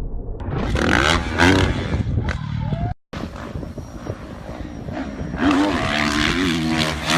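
Dirt bike engines running and revving with rising and falling pitch, cut off abruptly about three seconds in and picking up again after a brief gap.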